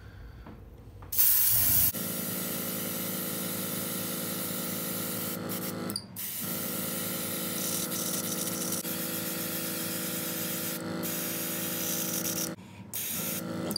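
Airbrush spraying orange paint: a steady hiss of air with a steady hum underneath. It starts with a brief louder blast about a second in and breaks off briefly twice, around six seconds in and near the end.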